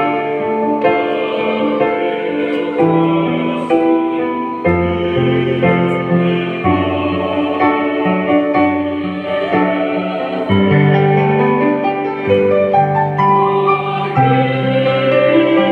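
Church choir singing with keyboard accompaniment. Held chords change every one to two seconds over a moving bass line.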